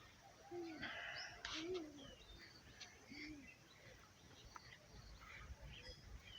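Faint birds chirping: short scattered calls over a quiet rural background, with a few faint low calls underneath.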